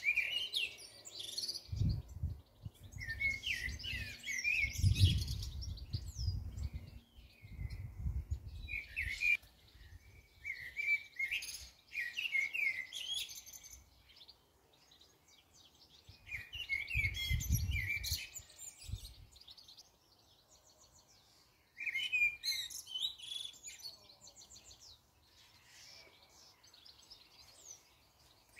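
Garden songbirds singing in short, repeated phrases of chirps, with brief pauses between phrases. Bursts of low rumble come and go underneath, strongest a few seconds in and again past the middle.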